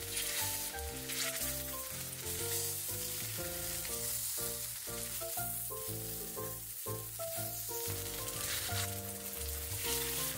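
Zucchini pancakes (aehobak-jeon) sizzling steadily in oil in a frying pan, under light background music with a plucked-note melody.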